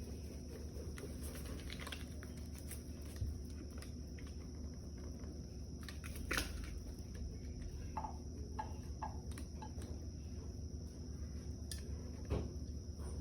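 Scattered sharp clicks and taps of a bird pecking at dry dog food, a few seconds apart, over a steady high-pitched whine and a low hum.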